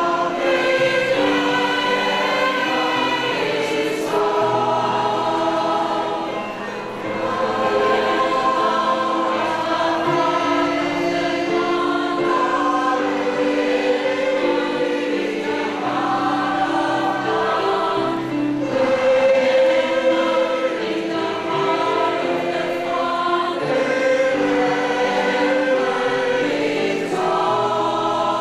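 Choir of mostly women's voices singing a song together, with a short dip in loudness between phrases about seven seconds in.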